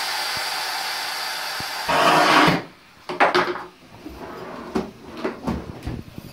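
Electric cast saw running with a steady motor whine, swelling briefly before it is switched off about two and a half seconds in. Then scattered knocks and clatter of tools and a cabinet drawer being handled.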